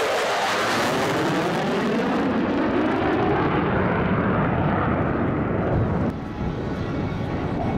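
Jet noise from two USAF Thunderbirds F-16 fighter jets passing overhead, the pitch falling as they move away and then settling into a steady rumble. About six seconds in the sound changes abruptly to another stretch of jet noise.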